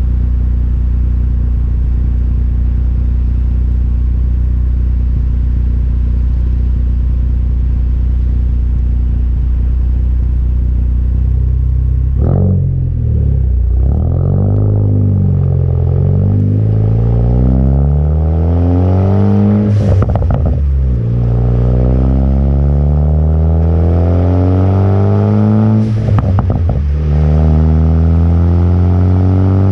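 Car exhaust with an AWE Track system on a stock downpipe and a crackle tune. It holds a steady note for about twelve seconds, then pulls hard through the gears, the pitch climbing each time. Upshifts come about twelve, twenty and twenty-six seconds in, each with a short crack.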